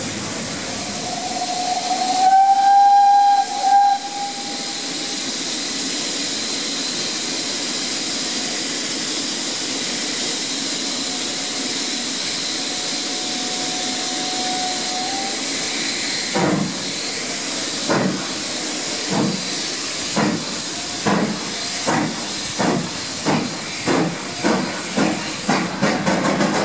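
GWR 'Hall' class steam locomotive 6960 Raveningham Hall with a steady steam hiss, its whistle blown loudly about two seconds in and sounding faintly again around halfway. About two-thirds through, exhaust beats start and come steadily faster as the engine works harder and picks up speed.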